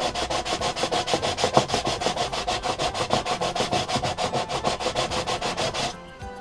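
Moped cylinder head being rubbed back and forth on a sanding disc laid on a flat bench, making fast, even scraping strokes that stop abruptly near the end. This is the head's gasket face being cleaned and surfaced flat.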